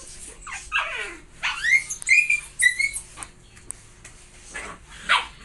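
Husky puppy whining: several high calls that slide down or rise and hold, followed by a few short yaps near the end.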